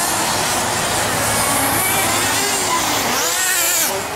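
Nitro R/C touring cars' small two-stroke glow engines running hard, several at once, their whine rising and falling as the cars accelerate and slow through the corners. One engine climbs and drops sharply in pitch about three seconds in.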